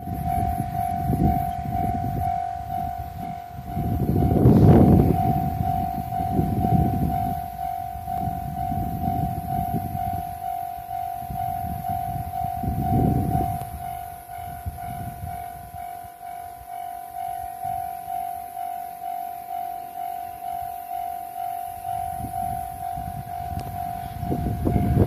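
Japanese railway level-crossing warning bell ringing steadily, a repeated ding about twice a second, with low rumbling that swells and fades, loudest about five seconds in.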